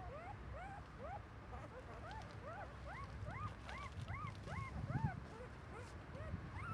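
Newborn puppies whimpering and squeaking: a quick run of short, high cries that each rise and then fall in pitch, about three a second.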